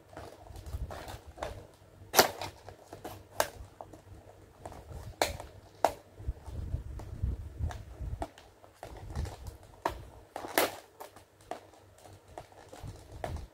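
Scissors snipping through a stiff glossy toy package, an irregular run of sharp clicks and snips as the blades close, loudest about two seconds in and again near ten and a half seconds, over a low rumble of the package being handled.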